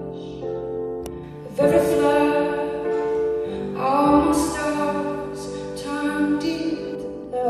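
A woman singing a slow song with long held notes, accompanying herself on piano. New sung phrases start about one and a half seconds and four seconds in.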